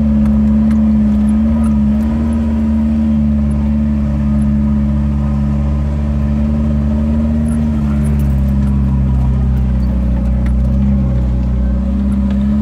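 Jeep engine running at low, fairly steady revs, heard from inside the cab as it crawls along a dirt trail. The pitch wavers slightly.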